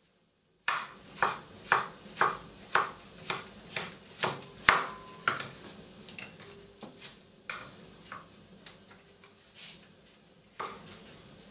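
Kitchen knife chopping king oyster mushroom on a wooden cutting board: a steady run of sharp knocks about two a second, with one brief ringing clink near the middle. After that come sparser, softer taps.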